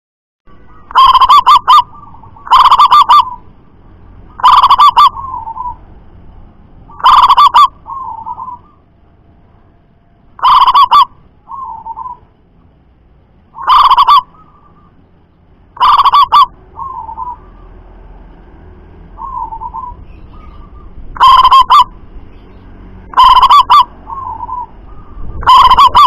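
Caged local zebra dove (perkutut) singing loudly: about ten short phrases of rapid, trilled cooing notes a couple of seconds apart. Several phrases end in a softer separate 'kuk' note.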